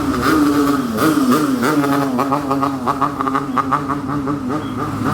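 Basuri multi-note bus air horn (telolet) playing a tune, its pitch stepping and gliding from note to note, with a fast run of quick repeated notes in the middle.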